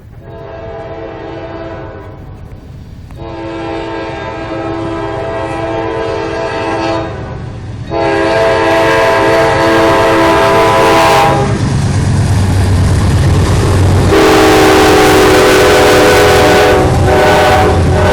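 CSX freight locomotive's air horn sounding four long blasts, each a chord of several tones, getting louder as the train approaches. Between the third and fourth blasts a deep diesel engine rumble swells as the locomotive draws level.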